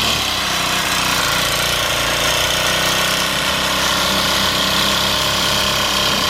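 Petrol string trimmer (weed whacker) running steadily while cutting grass.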